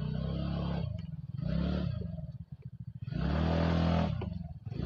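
Scooter engine idling, with two blips of the throttle, the second one longer and louder, as the scooter is being parked.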